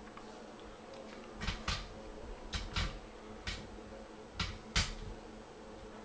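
Handling and movement noise while filming: about seven short, irregular clicks and rustles over a faint steady hum.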